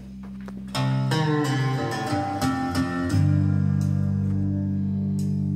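Recorded guitar music played back from a CD through hi-fi loudspeakers, the AR 308 HO: plucked notes over sustained low bass tones, with a busier run of plucked notes starting about a second in.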